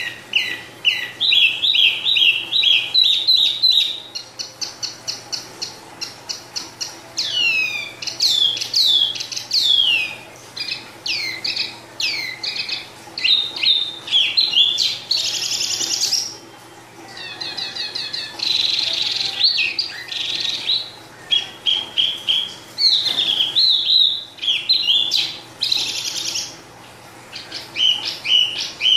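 Caged wambi songbird singing non-stop, a rapid run of varied whistled notes, trills and downward-slurred phrases with only brief pauses.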